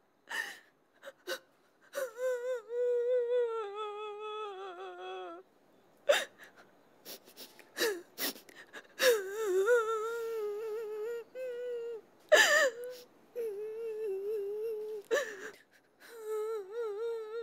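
A high voice wailing in long, wavering held notes, in several stretches broken by short sharp gasps.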